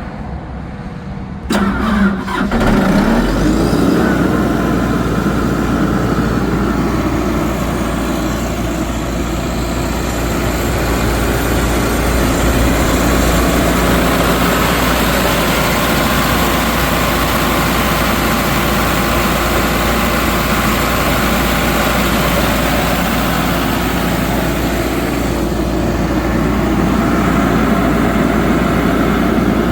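The John Deere 4045 four-cylinder diesel engine of a Sullivan 375 CFM air compressor starts about a second and a half in, speeds up over a second or two, then runs steadily.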